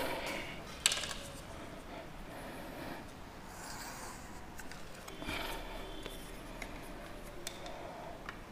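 Chalk scraping on a blackboard along the edge of a plastic set square as angle lines are drawn. A sharp knock comes about a second in, and a few fainter knocks follow later.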